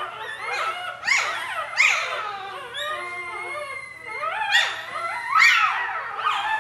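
A litter of newborn puppies crying together: many overlapping high-pitched whines and squeals that rise and fall in pitch, swelling louder several times.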